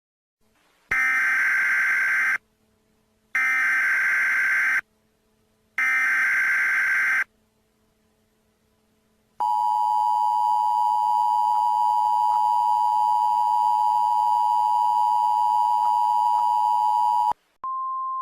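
Emergency Alert System tones: three bursts of SAME digital header data about a second apart, then, after a pause, the two-tone EAS attention signal held steady for about eight seconds. It is followed by a brief, quieter single steady tone.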